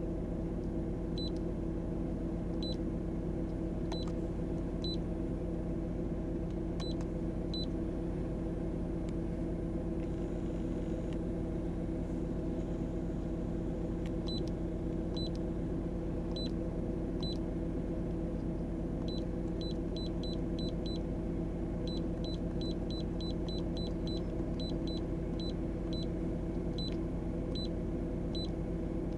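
Short high beeps from a handheld iCarsoft i906 OBD scan tool, one with each press of its keypad buttons: a few spaced apart at first, then quick runs of presses in the second half. Under them runs a steady low hum in the car cabin.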